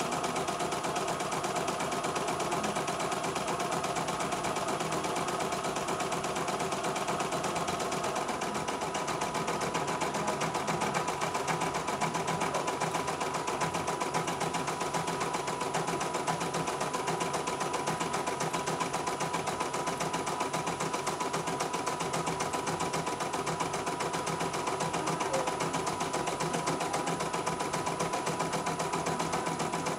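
CNY E900 portable embroidery machine stitching a design: the needle runs at a fast, even rate while the embroidery unit moves the hoop under it.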